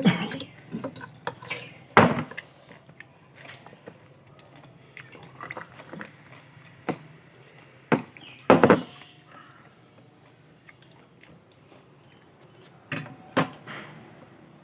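Sounds of a shared meal: scattered clinks and knocks of spoons and dishes, with chewing between them.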